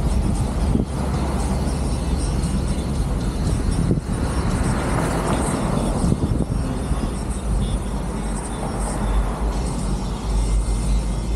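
Open-top Jeep driving downhill, its engine and road noise rumbling steadily under rushing wind from the open cab, the rush swelling about four to six seconds in.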